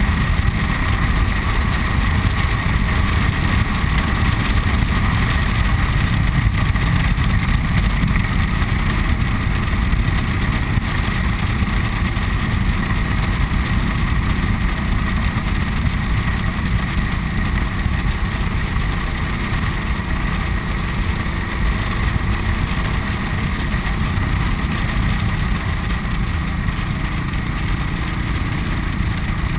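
Cruiser motorcycle running steadily at road speed, with heavy wind noise rumbling on the handlebar-mounted microphone.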